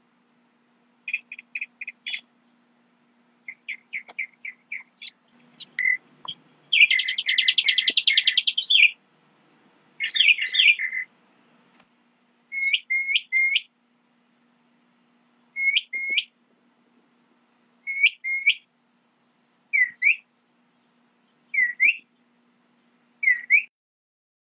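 A songbird calling: quick runs of short high chirps, a fast rattling trill about seven seconds in, then short whistled notes in twos and threes, repeated every couple of seconds and later single.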